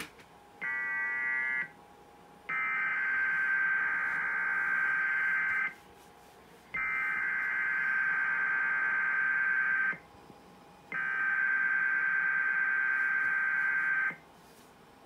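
Emergency Alert System SAME header: a short burst of data tones, then three identical bursts of fast shrill warbling data, each about three seconds long with a second's pause between. This is the digital header, sent three times, that opens an EAS alert, here a practice/demo warning.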